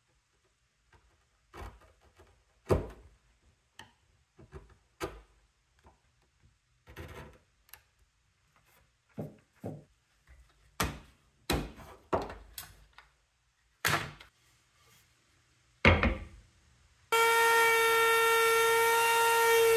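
Wooden workpieces being handled and set down in a woodworking shop: irregular sharp knocks and thunks. About 17 seconds in, a power tool starts up abruptly and runs with a loud, steady whine.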